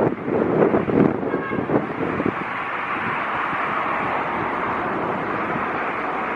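Wind buffeting the microphone in gusts, giving way after about two seconds to the steady rush of a jet airliner's engines.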